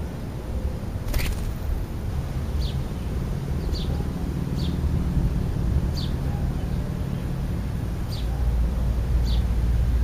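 A bird gives short, high, falling chirps, about one a second, over a steady low rumble that swells near the end. There is a single sharp click about a second in.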